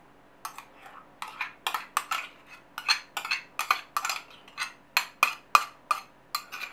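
Sour cream being scraped out of a plastic tub into a ceramic bowl: a quick, uneven run of short scrapes and clinks, a few each second, starting about half a second in.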